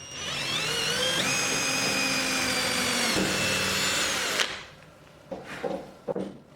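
Handheld electric power tool motor spinning up with a rising whine, running at a steady high pitch, then cutting off abruptly about four seconds in. A few short knocks and scrapes from handling follow near the end.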